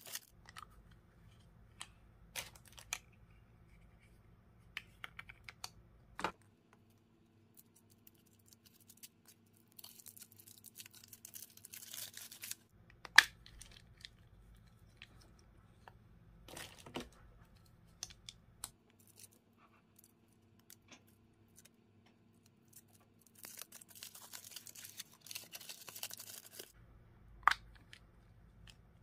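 Chocolate surprise egg being handled: its pink foil wrapper crinkling and rustling in the fingers, and the thin chocolate shell cracking apart, with a few sharp snaps spread through long quiet stretches.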